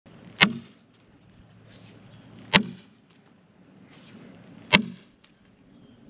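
Three strikes of a sledgehammer on a steel splitting wedge set in a crack in a log, about two seconds apart, each with a short metallic ring.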